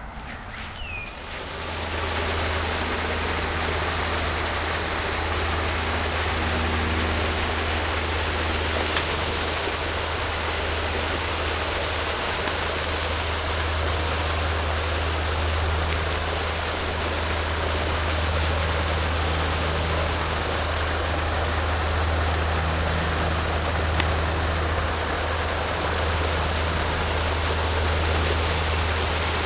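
Lake fountain aerator spraying water, a steady rushing splash with a constant low hum underneath, starting abruptly about a second and a half in.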